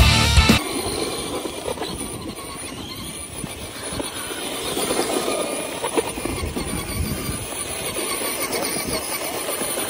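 Radio-controlled monster truck driving off-road: an electric motor and gear whine that rises and falls with the throttle over a steady rumble of tyres on rough ground. Rock music cuts off about half a second in.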